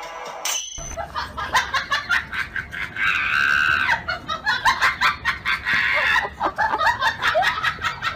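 A husky yowling and whining in a rapid run of short, high-pitched cries, with one longer held cry about three seconds in.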